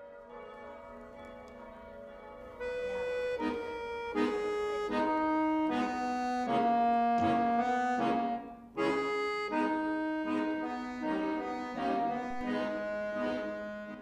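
Accordion music: a slow melody of held notes over sustained chords, soft at first and louder from about three seconds in, with a brief drop near the middle.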